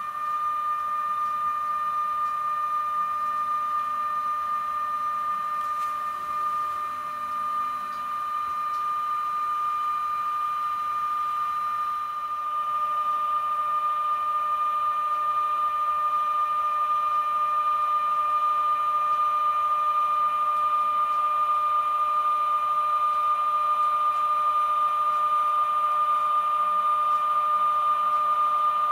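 Model electric locomotive running on the layout track, giving a steady whine that gets a little louder about halfway through.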